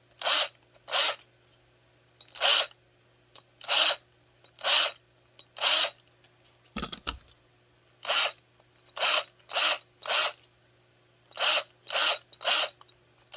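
Short rasping strokes of a hand tool cleaning up the edges of freshly drilled holes in a kydex sheet, about fourteen strokes at an uneven pace. A dull knock about seven seconds in.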